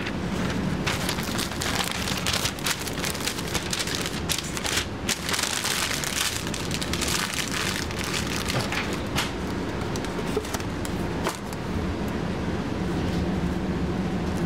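Smashburger patties sizzling on a flat-top griddle: a dense, spattering crackle, heaviest in the first half and thinning out later, over a steady low hum.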